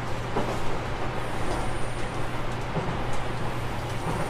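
Running sound inside a JR Kyushu 813 series 200-subseries electric multiple unit with a Toshiba GTO VVVF inverter, travelling at speed: a steady rumble of wheels on rail with a constant low hum underneath.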